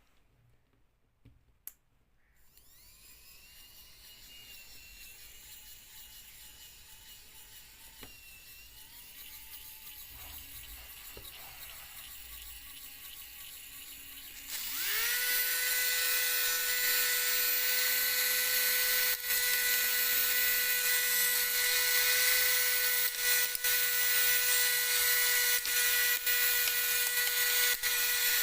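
Small electric motor of a home-made BB blaster running with a high whine: faint at first, then spinning up sharply about halfway and running loud and steady, with a few brief interruptions.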